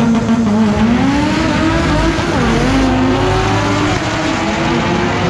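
A V8 Chevrolet Camaro and a four-cylinder Acura launching side by side down a drag strip: engines held at steady high revs, then climbing in pitch through the gears, with a shift about two seconds in and another about four seconds in.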